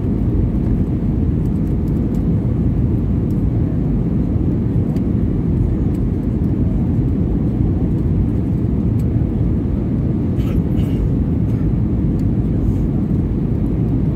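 Cabin noise of an Airbus A320-214 with CFM56-5B engines heard from a window seat: a steady low rumble of engines and airflow with no change in level.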